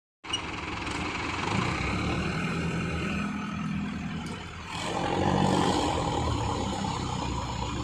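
Combine harvester's diesel engine running steadily, with the engine noise growing louder about five seconds in.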